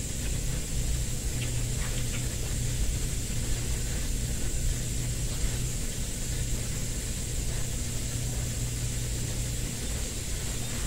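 Steady low hum with an even hiss over it, and a couple of faint clicks about two seconds in.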